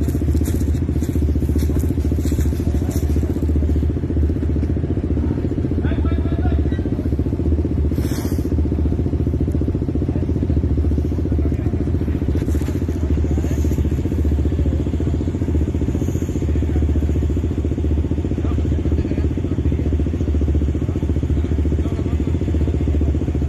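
Off-road side-by-side engine running steadily at an even pitch, with no revving.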